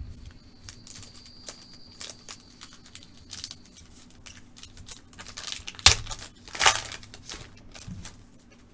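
Foil trading-card pack wrapper crinkling as it is handled and torn open by hand, with many small crackles and the loudest sharp crackles near six to seven seconds in.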